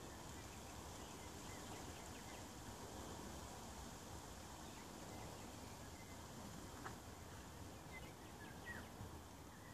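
Faint, steady outdoor background noise with a few faint, short bird chirps scattered through.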